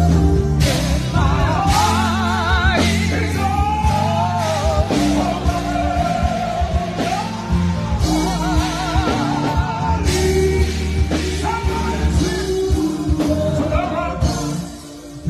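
Live gospel song played through a PA: a singer holding wavering notes over band backing with a steady bass line. The sound dips briefly just before the end.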